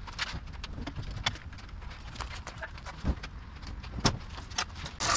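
Scattered light ticks and taps at irregular intervals over a low steady rumble, with a slightly louder tap near the end.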